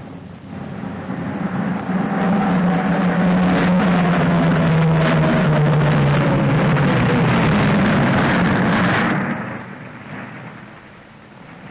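Piston engines of a twin-engine propeller airliner droning as the plane passes, the drone swelling and its pitch slowly falling, then dropping away sharply about nine seconds in.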